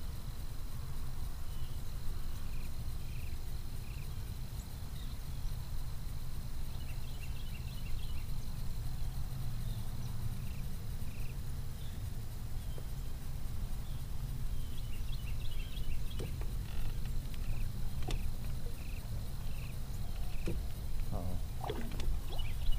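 Outdoor ambience: a steady low rumble with faint short chirps repeating about every half second, and a few light clicks and knocks near the end.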